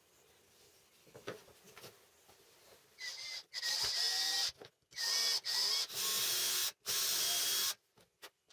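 Power drill run in a series of short trigger bursts of about half a second to a second each, starting about three seconds in, after a few light handling knocks.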